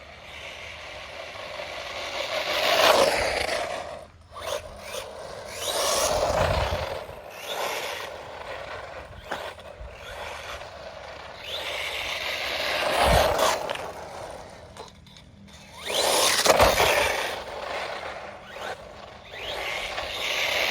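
Brushless Hospeed 1/16-scale RC truggy driven hard past the microphone several times: each pass is a rush of motor, drivetrain and tyre noise that swells and fades. The driver suspects a gearing issue in its drivetrain noise, or that it just needs to break in.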